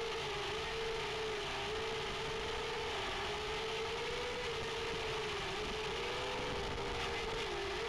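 FPV quadcopter's brushless motors and propellers whining steadily, the pitch wavering up and down a little with the throttle, over a steady hiss.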